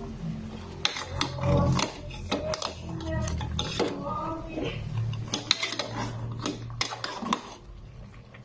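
A metal spoon stirring chunks of pork ribs in an aluminium pot: irregular clinks and scrapes of metal on the pot.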